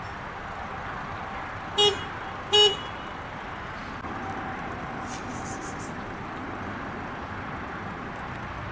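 A car horn toots twice in quick succession, two short blasts less than a second apart, over steady motorway traffic noise.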